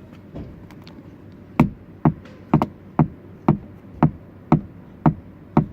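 A run of sharp clacks, about two a second, starting about a second and a half in: the interior door handle of a Chrysler 200 being worked, the rattling noise that is being fixed.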